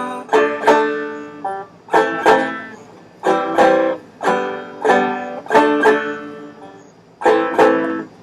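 Solo banjo strumming an instrumental break: sharp strummed chords that ring and die away, falling into pairs of strokes in an even rhythm.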